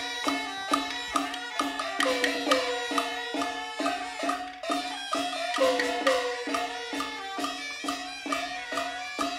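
Traditional Taiwanese glove-puppet theatre music played by a live percussion ensemble: quick, steady strikes of drum, cymbals and woodblock, with struck tones that slide down in pitch after some beats over a held low note.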